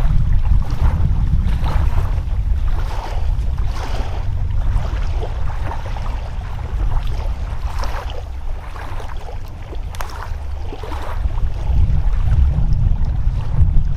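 Strong wind buffeting the microphone in a steady low rumble, over the wash of rough waves on the shore.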